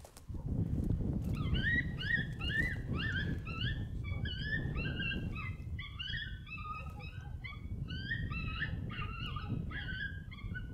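A pack of coyotes yipping and howling together, many short rising yips overlapping, starting about a second in, over low wind rumble on the microphone.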